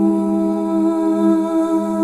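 Ambient music: a wordless female vocal hum held steady on one chord.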